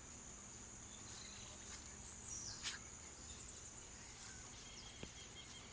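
Outdoor nature ambience: a continuous high-pitched insect trill, with a few short descending bird calls over it.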